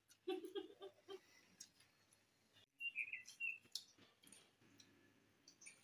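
A person eating with their fingers: faint lip smacks and clicks, a few short murmurs in the first second, and a brief bird chirp about three seconds in.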